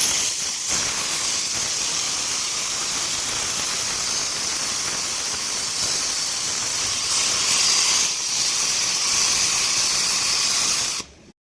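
Gantry CNC metal-cutting machine's torch cutting steel plate: a loud, steady gas hiss that stops abruptly near the end.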